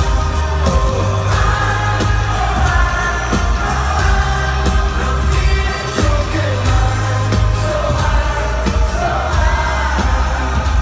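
Pop band playing live at a stadium concert: a singer's voice over a heavy bass line and a steady drum beat, heard through the venue's PA.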